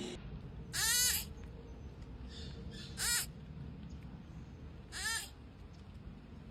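An animal calling three times, about two seconds apart. Each call is short, and its pitch rises then falls.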